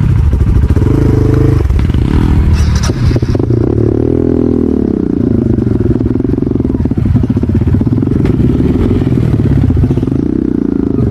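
Motorcycle engine running, blipped up and back down about four seconds in, with a brief clatter a couple of seconds in.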